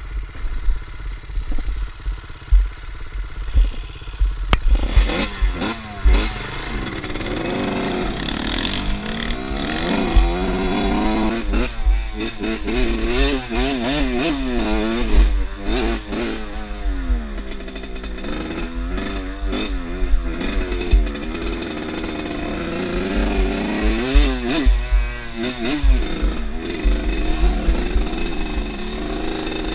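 Off-road motorcycle engine revving while riding, its pitch rising and falling again and again as the throttle opens and closes, with wind rumbling on the microphone. It is lower and steadier for the first few seconds, then the revving begins about four seconds in.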